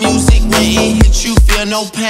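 Hip hop music track with a heavy, deep kick drum hitting about twice a second under a vocal line.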